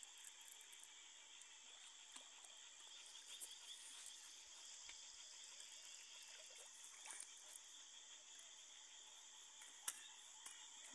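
Faint steady chirring of crickets, with a few light clicks and rustles and one sharper click near the end.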